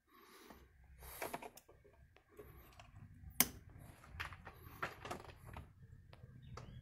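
Handling noises: scattered clicks and knocks, the sharpest about three and a half seconds in, over a faint low rumble.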